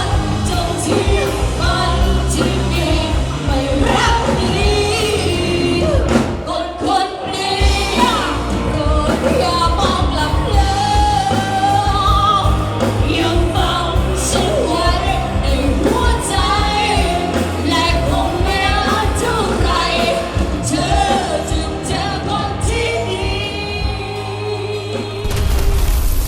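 A singer performing a Thai pop song with a band, with a steady heavy bass and beat. A sudden loud burst of noise comes in about a second before the end.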